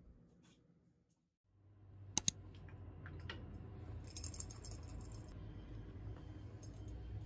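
Two sharp clicks, then small dried treats rattling inside a small clear jar, shaken for about a second.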